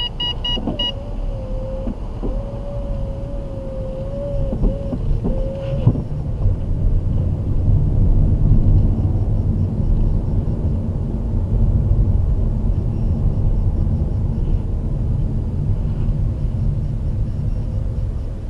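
Mercedes-Benz W212 E-Class heard from inside the cabin as it drives through city traffic: a steady low rumble of engine and road noise, a little louder in the middle. A short run of electronic beeps ends about a second in.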